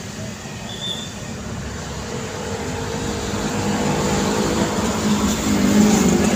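Road traffic passing close by: cars and motorbikes going past, then a heavy loaded diesel cargo truck's engine droning and growing steadily louder as it approaches over the second half.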